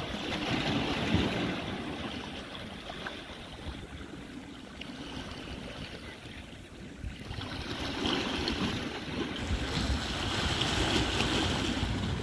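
Small sea waves washing against shoreline rocks, with wind buffeting the microphone. The surge swells about a second in and again from about eight seconds on.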